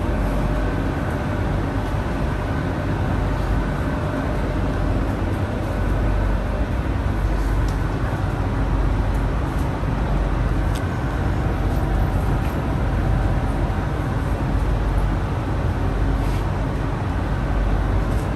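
Inside a moving ART200 light-metro car: steady rumble of steel wheels running on the rails, loud, with faint steady hum from the car's linear induction motors and a few light ticks.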